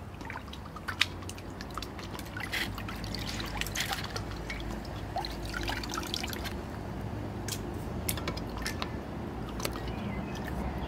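Raw fish pieces being rinsed by hand in an enamel basin of water: splashing, with water dripping and trickling back into the basin. A single sharp knock about a second in is the loudest sound.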